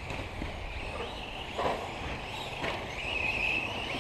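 Radio-controlled cars racing, their motors making a high whine that swells about three seconds in, with two short knocks of the cars about halfway through.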